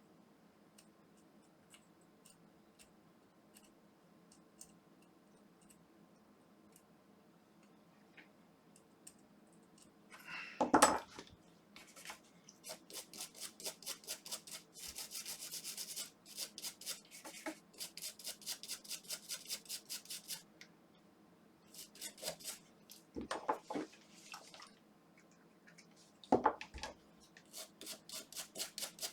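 Quick back-and-forth scrubbing strokes, several a second, on a small plastic part being cleaned of limescale with isopropyl alcohol. The strokes come in long runs with short pauses. A loud knock comes about a third of the way in, and another sharp knock follows later.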